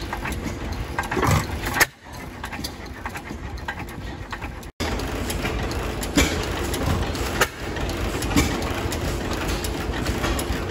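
Antique stationary gas engines running: a steady mechanical clatter with sharp firing pops standing out now and then. The sound drops out briefly twice.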